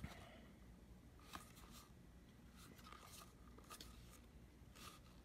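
Near silence, with a few faint clicks and rubs of hands handling a plastic portable tire inflator; one click about a second and a half in stands out a little.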